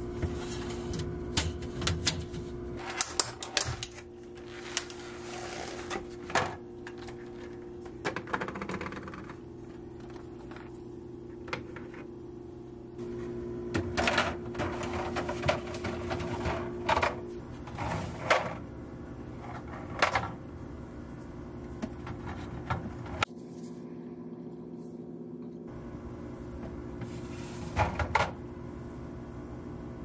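Hard plastic clicking and knocking as a clip-on egg drawer is slid onto a refrigerator's glass shelf and handled, in many short irregular taps. A steady hum runs underneath.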